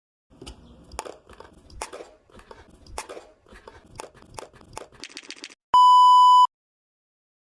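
Irregular crunchy clicks and taps for several seconds, then a loud, steady electronic beep tone lasting under a second, about six seconds in.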